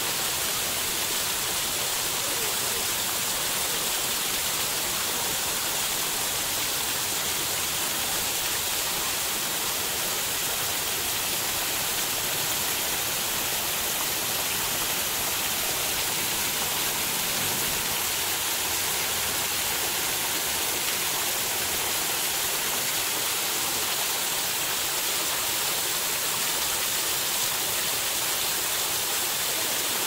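Artificial waterfall: thin streams of water falling down a rock face and splashing onto the rocks below, a steady, even rush.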